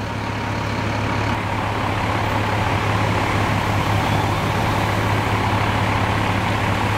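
Fire trucks' diesel engines running at a steady idle, a heavy low drone that grows a little louder over the first few seconds.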